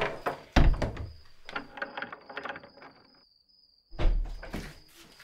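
Apartment front door handled with its security chain: a heavy thump as the door is pushed to, a run of small clicks and rattles as the chain is slid off, then another heavy thud as the door is opened again.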